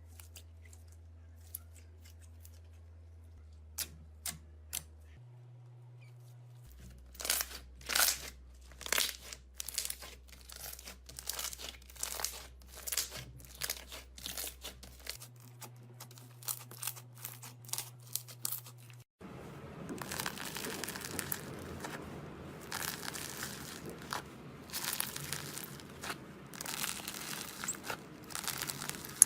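Slime being squished, stretched and pulled apart by hand, making sticky crackling and popping. A few clicks come first, then a run of crackles from about seven seconds in, and denser, steadier crackling from about nineteen seconds in.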